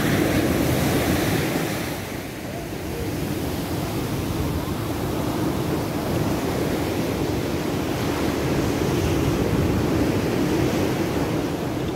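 Ocean surf rushing onto the beach, swelling and easing, with wind buffeting the microphone.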